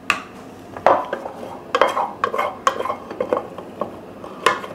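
A spoon knocking and scraping against a pot to get out the last of the mashed potato: a run of irregular clanks and taps, a few of them sharp.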